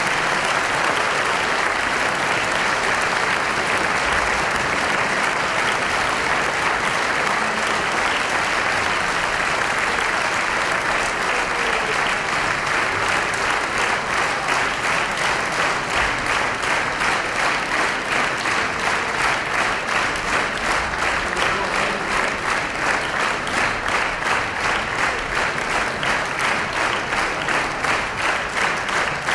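Concert audience applauding a live performance. A dense ovation about halfway through turns into rhythmic clapping in unison, a steady beat of a few claps a second.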